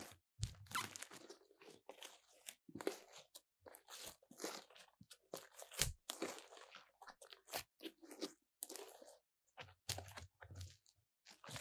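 Glossy slime being pressed, folded, squeezed and stretched by hand, giving sticky crackles and pops in irregular bursts with short gaps between them.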